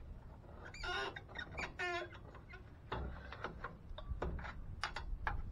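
A pry bar working a 1998 Chevy C1500's front brake caliper off its rotor. There are two short wavering squeaks about one and two seconds in, then scattered light metal clicks and knocks as the bar shifts against the caliper.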